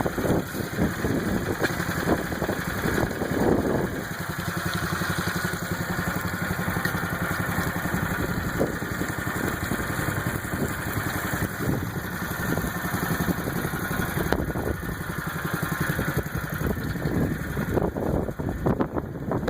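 Small engine running steadily, with louder, irregular knocking and splashing-type noise over it in the first few seconds and again near the end.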